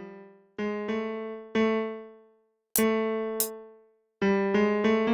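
FL Keys virtual piano in FL Studio sounding single notes one at a time as they are auditioned, about seven strikes, each left to ring and die away, mostly on the same low-middle pitch. Two short high ticks come near the middle.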